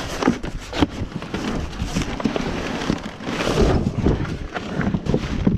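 Cardboard box and the things in it rustling, scraping and knocking as it is handled and lifted, a crackle of many small clicks and knocks.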